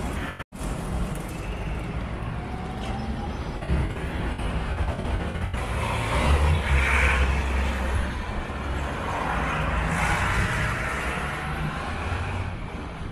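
A line of big farm tractors driving past on a road, their diesel engines rumbling steadily, loudest about six to eight seconds in as one passes close. There is a brief break in the sound about half a second in.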